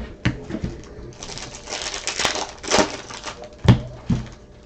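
Trading card packs and cards being handled: crinkly wrapper noise and a series of sharp clicks and taps, the loudest click about three and a half seconds in.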